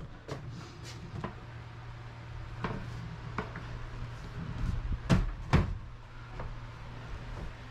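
Scattered knocks and clunks of work being done by hand, about seven of them with the two loudest a little after five seconds in, over a steady low hum.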